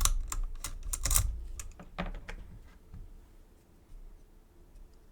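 Metal lock and lockpicking tools being handled: a quick string of sharp clicks and clacks in the first two and a half seconds, then fainter scattered ticks.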